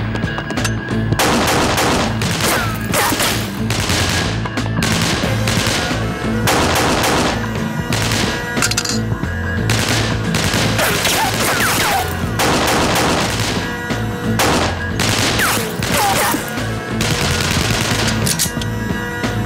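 Pistol gunfire in a shootout: many shots fired in rapid strings with short lulls between them, over a steady dramatic music score.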